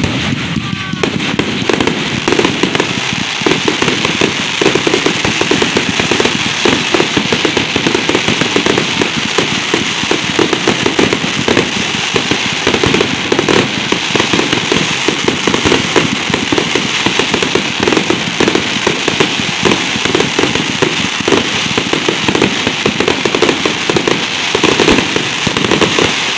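Fireworks going off in a dense, continuous barrage of rapid bangs and crackling, with no pause.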